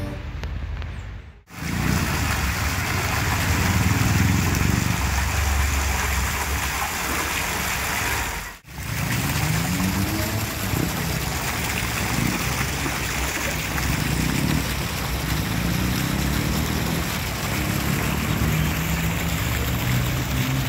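Fountain jets splashing steadily into a tiled basin, a constant rush of falling water. It breaks off sharply twice for a moment.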